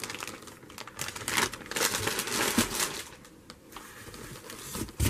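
Clear plastic produce bag crinkling and rustling as a head of lettuce is handled, then rustling as a hand rummages among produce in a cardboard box. A single thump near the end.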